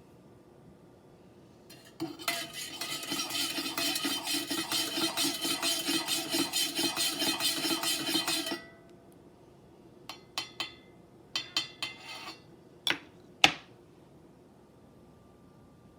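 A spoon stirring coffee in a cup, clinking rapidly against the side about four times a second for some six seconds, with the cup ringing. Then a few lighter separate clinks, and two sharp taps on the rim near the end.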